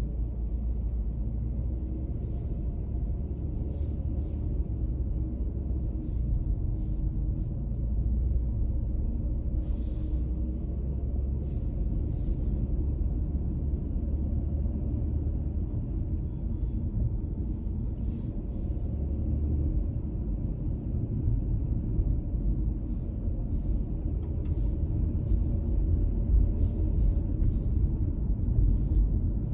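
A car being driven at a steady pace: a low, even rumble of road and engine noise, with faint small ticks here and there.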